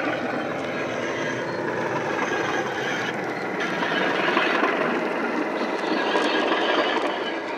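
Model Class 37 diesel's DCC sound decoder (Legomanbiffo Wensleydale Class 37 sound) playing the engine running under power through a small EM2 speaker as the locomotive passes close by, swelling to its loudest past the middle and easing near the end. The running noise of the model wagons on the track follows behind it.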